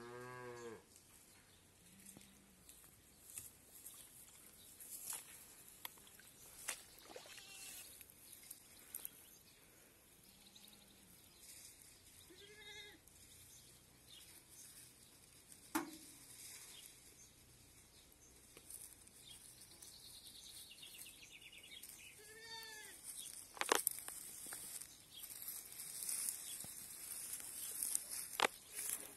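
Goats bleating now and then: a rising call right at the start, a short call about halfway, and another a little later. Near the end come close rustles and knocks as a goat comes right up against the microphone.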